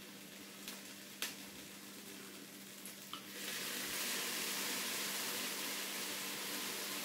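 Rice, vegetables, corn and black beans sizzling in the hot cooking pot of a Ninja Speedi, with a few light spoon taps in the first three seconds. From about three seconds in, a steady, louder sizzle as the mix is stirred.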